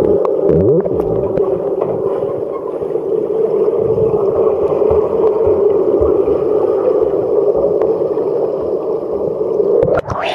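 Swimming-pool water heard by a submerged microphone: a steady, muffled churning with dull knocks from swimmers moving through the water. It changes abruptly near the end as the microphone breaks the surface.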